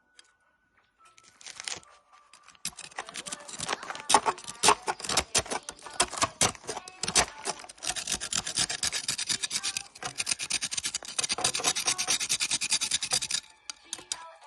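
Candy packaging being rustled and crinkled by hand: a dense run of crackles that starts a couple of seconds in, dips briefly around ten seconds, and stops shortly before the end.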